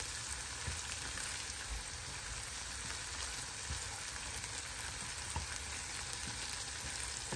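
Chopped onion and tomato paste sizzling in butter in a frying pan over high heat, with a silicone spatula stirring and scraping through it.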